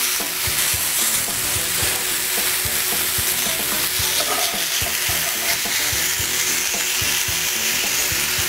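Nopal cactus paddles and panela cheese sizzling steadily on a hot grill pan, with small scattered knocks and scrapes of a cooking utensil on the pan as the cheese is moved onto the nopales.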